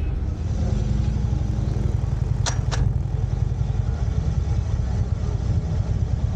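Harley-Davidson Ultra Limited's V-twin engine running with a steady low rumble. Two sharp clicks come in quick succession about halfway through.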